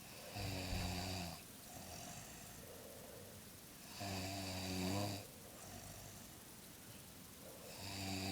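An elderly woman snoring in her sleep: a low snore about every four seconds, with a softer breathy sound between snores. Two full snores, then a third starting near the end.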